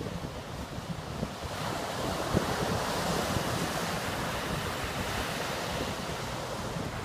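Ocean surf breaking and washing up a sandy beach, swelling about a second and a half in and slowly easing off. Wind buffets the microphone with low rumbles throughout.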